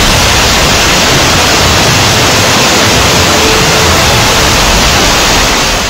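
Battery of BM-27 Uragan 220 mm multiple rocket launchers firing a salvo: rocket launches in quick succession merge into one continuous, very loud roar, which starts to die away near the end.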